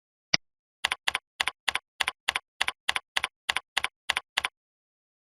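Typing on a computer keyboard: one lone click, then a run of about fourteen keystrokes at about four a second, each with a quick double tap of key going down and coming up.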